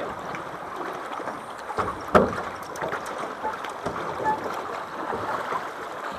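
River water running steadily around a drift boat, with a sharp knock about two seconds in and a few lighter clicks.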